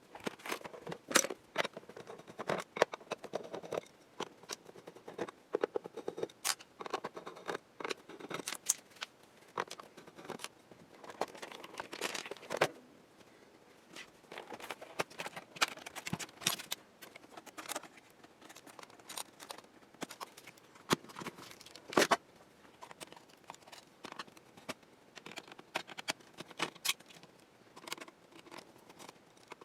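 Scattered clicks, taps and short scrapes of an Epson HX-20 portable computer's plastic case and parts being handled and taken apart by hand to get the LCD screen out.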